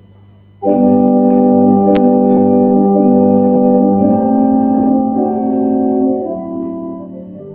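Church organ playing slow sustained chords. It starts loud about half a second in and grows softer near the end.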